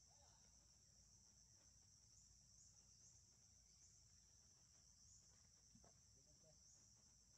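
Faint, steady, high-pitched drone of insects chirring.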